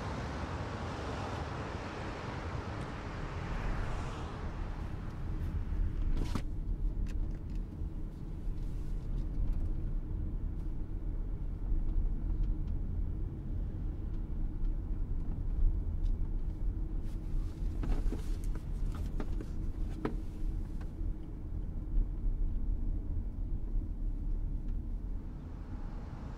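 A car driving along a street: a steady low rumble of road and wind noise, with a hiss that fades away over the first four seconds and a few sharp knocks, the clearest about six seconds in.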